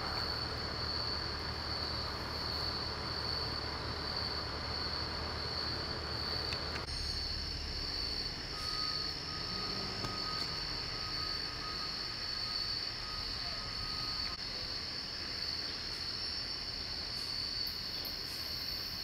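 Insects trilling steadily and high-pitched in the night woods. Under them runs a low, steady rumble that drops away about seven seconds in, and a faint steady tone sounds for several seconds near the middle.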